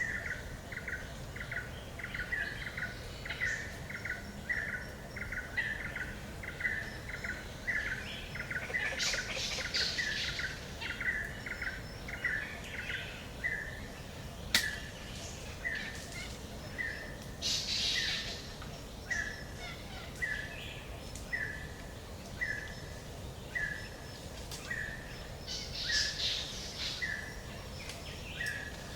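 Forest ambience: a bird repeats one short call a little under twice a second, and other birds chirp in brief higher bursts a few times. There is one sharp click about halfway through.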